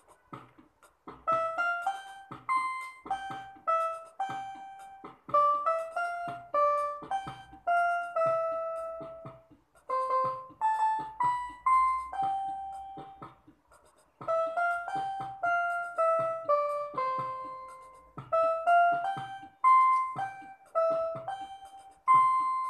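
Home electronic keyboard played one note at a time: a simple melody in short phrases, with brief breaks between them.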